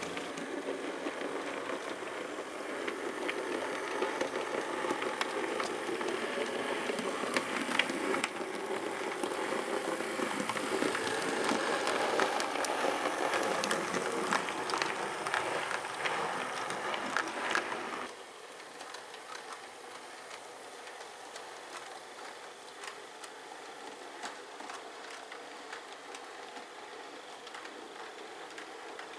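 00 gauge model train running on the layout's track: a steady rattling run with frequent clicks. About two-thirds of the way through the sound drops abruptly to a quieter, lighter run, as from a change of shot.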